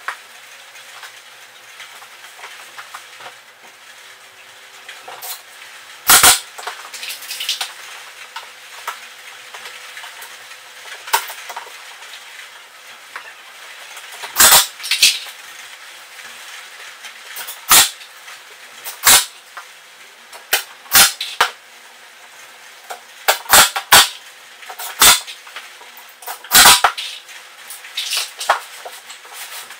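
Intermittent sharp clacks and knocks, about a dozen of them spread irregularly, from tools and clamps being handled on MDF boards during woodworking, with no steady drill motor running.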